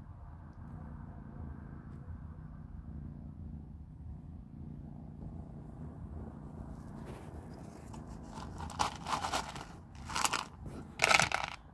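Kittens crunching dry cat kibble, over a low steady hum; the crunches grow louder and come in quick clusters in the last few seconds.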